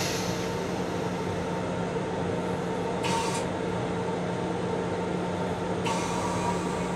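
Interior noise of a Bombardier M7 electric railcar, heard inside its restroom: a steady rumble with a constant hum, and brief hisses about three seconds in and again near the end.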